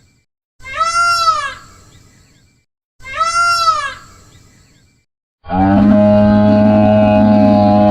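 Two identical cat meows, each rising and falling in pitch, about two and a half seconds apart. Then a long, steady, low cow moo starts about five and a half seconds in.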